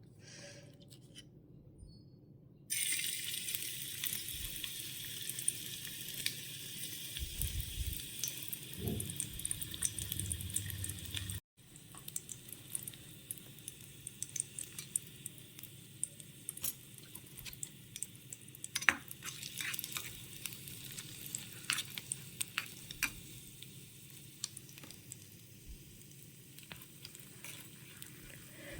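Food sizzling in hot oil in a miniature pan, with crackles and small clicks of a tiny spoon stirring. The sizzle starts about three seconds in and is loudest at first. After a sudden break partway through it goes on more quietly, with scattered clicks.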